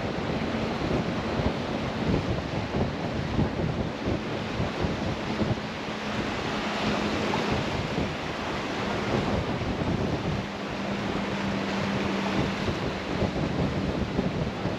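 Wind buffeting the microphone over waves on the water, with a faint steady hum underneath.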